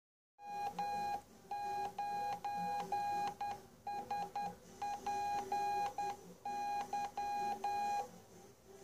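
Morse code (CW) tone keyed on and off in dots and dashes at about 11 words per minute, one steady pitch, starting about half a second in. It is sending the call sign W9SPY as part of a 'CQ CQ DE W9SPY TEST' call.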